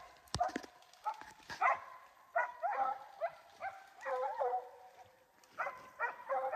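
Hunting hound giving tongue on a scent trail: a run of short, pitched barks, several a second, coming in bunches with a short lull before they pick up again. A couple of sharp knocks come right at the start.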